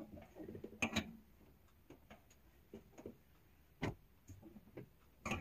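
Wet laundry being lifted out of a top-loading washer and dropped into a dryer: faint scattered clicks and knocks, with a handful of sharper knocks among them.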